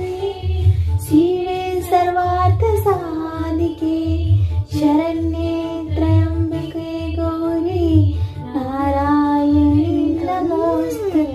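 A woman and a small child singing together in long held, gliding notes, over a steady low beat.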